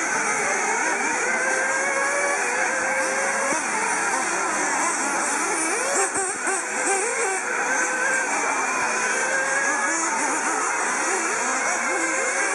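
Several 1/8-scale RC off-road buggies racing together, their small engines making many overlapping notes that rise and fall as they accelerate and slow through the turns.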